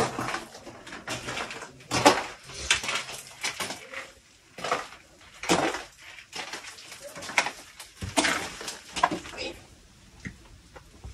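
Footsteps crunching on a gritty, rubble-strewn stone floor, an irregular run of short scuffs and crunches.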